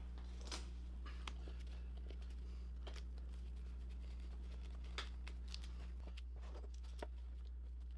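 Faint crinkling of plastic stretch wrap and scattered light clicks as a glued stack of thin wooden laminations is bent around a form and clamped, over a steady low electrical hum.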